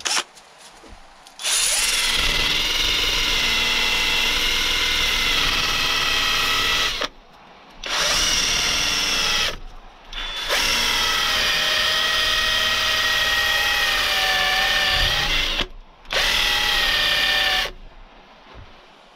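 Cordless drill spinning a 180-grit sanding disc on a backing pad against the curb-damaged edge of an alloy wheel rim. Its motor whines steadily in four runs, the longest about five seconds, with short pauses between.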